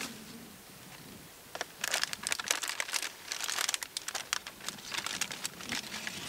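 Paper pollen bag over a corn tassel crinkling and rustling as it is handled and tapped to shake the pollen down into it, in quick irregular bursts from about a second and a half in.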